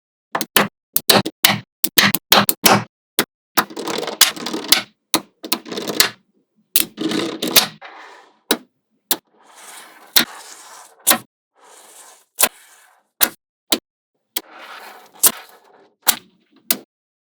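Small magnetic balls snapping together, sharp clicks coming in quick clusters, with short stretches of balls rattling and sliding against each other between the snaps.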